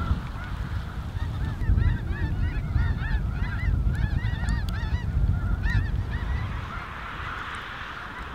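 A large flock of snow geese calling: a dense chorus of overlapping nasal honks, thickest from about two seconds in to about six seconds, with fainter massed chatter of the flock before and after. A low rumble runs underneath.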